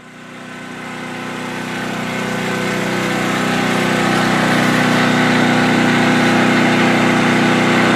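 Portable generator engine running at a steady speed, growing louder over the first few seconds and then holding level.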